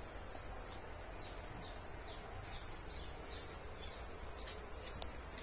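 Insects droning on one steady high tone, with a short falling chirp repeated about three times a second. A single sharp click comes near the end.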